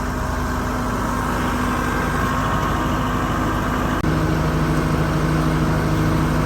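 A vehicle engine running steadily. About four seconds in, the sound changes abruptly to a slightly louder, steady, lower hum.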